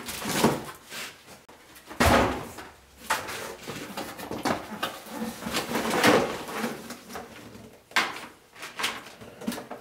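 Cardboard box and plastic packaging being handled: flaps pulled, bags rustling, with sharp knocks about two seconds in and again near the end as the box is bumped against the bench.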